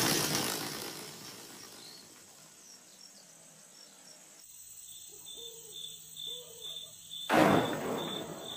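A noisy swell fading away at the start, then crickets chirping in a steady rhythm of about three high chirps a second. A short loud whoosh of noise comes near the end.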